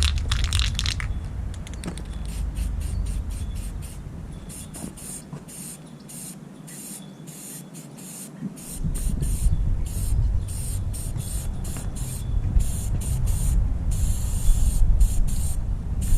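Aerosol spray paint hissing from a rattle can in many short bursts, laying on a first coat. Wind rumbles on the microphone underneath, dropping out for a few seconds in the middle.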